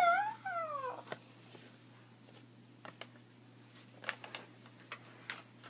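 A brief high-pitched meow-like call that rises and then falls in pitch, about a second long, followed by faint scattered taps and handling noises.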